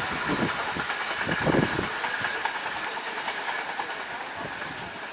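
Train running on the rails: a steady rushing hiss with a few wheel knocks in the first two seconds, slowly fading.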